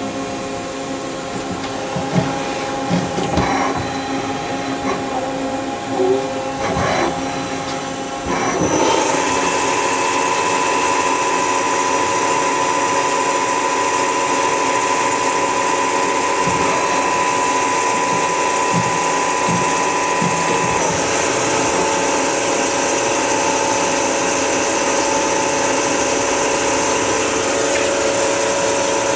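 Miyano BND-34S CNC turning center running a program. A few clicks and clanks come in the first seconds. About eight seconds in it steps up to a louder, steady whine with a hiss, which holds and shifts in pitch about twenty seconds in, as the spindle speed changes.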